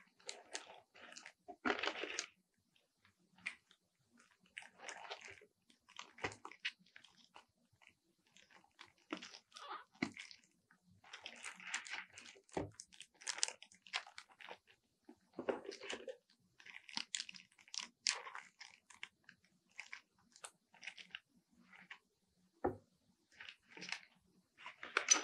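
Plastic packaging crinkling and rustling in irregular bursts as plastic-sleeved planners and covers are handled and moved, with a few soft knocks as items are set down on the table.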